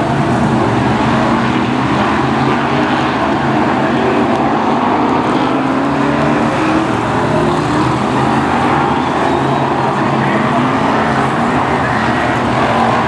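BriSCA F1 stock car's V8 engine running loud at low speed, its note rising and falling with the throttle.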